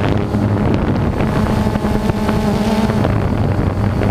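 DJI quadcopter drone's motors and propellers humming steadily, picked up by the camera it carries, with wind noise on the microphone. The pitch wavers and shifts about three seconds in.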